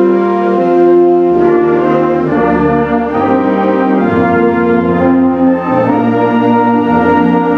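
High school concert band playing sustained chords, the brass to the fore with trumpets, trombones and tubas, over bass notes that change every second or so.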